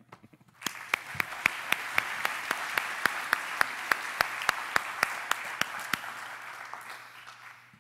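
Audience applauding, with one pair of hands clapping close by in a steady beat of about four claps a second. The applause starts about half a second in and fades away near the end.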